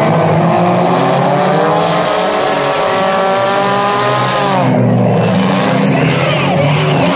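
Several derby cars' engines running hard on a figure-8 dirt track, their pitches rising and falling. About five seconds in, one engine's pitch drops sharply as it comes off the throttle.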